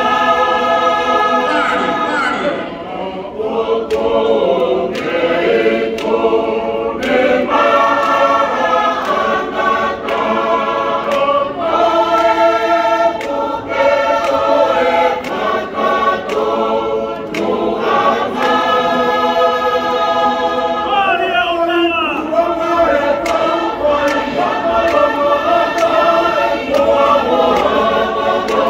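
A Tongan church choir of men and women singing together in harmony, holding full chords that shift every second or two.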